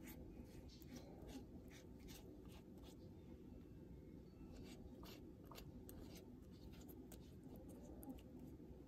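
Faint, irregular strokes and dabs of a silicone pastry brush spreading egg wash over raw pie crust dough, over a steady low hum.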